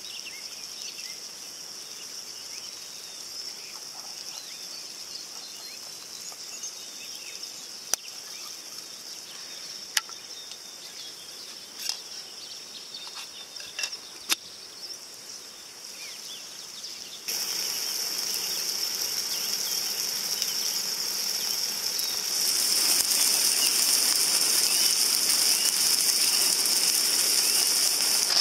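Corned beef, onions, mushrooms and tomatoes sizzling and crackling in a frying pan over a hissing gas camp stove. A few sharp clicks come in the first half, and the sizzle grows louder in two sudden steps past the middle.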